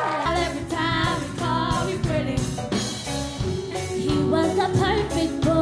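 A live pop band playing, with a young woman singing over electric guitar, keyboard and drums on a regular beat.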